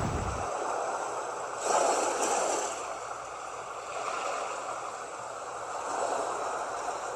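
Ocean surf washing up on the beach, with a wave swelling and breaking about two seconds in and a softer one around six seconds.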